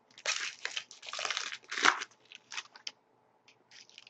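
Foil wrapper of a Panini Titanium hockey card pack crinkling and tearing as it is ripped open by hand, a busy run of rustles over the first two seconds, then a few light ticks and rustles as the cards are handled.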